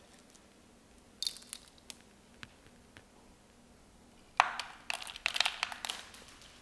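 Expanded clay pebbles (LECA) clicking and rattling against each other and the pots as a begonia's pebble-packed root ball is lifted and moved. A few single clicks about a second in, then a dense clatter from about four and a half seconds in.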